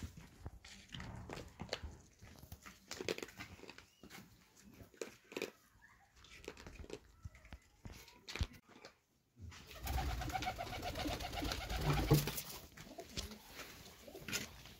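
Scattered light knocks and taps, then, from about two-thirds of the way through, a dove or pigeon cooing repeatedly.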